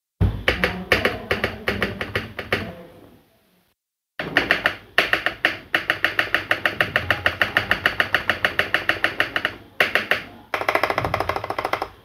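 A 6.25U stabilized spacebar on a steel-plate keyboard kit, pressed rapidly over and over: fast runs of sharp clacks, about five or six a second, each with a slight ringing. The runs pause briefly twice. The stabilizers are being tested after adjustment, and the spacebar now sounds fairly okay.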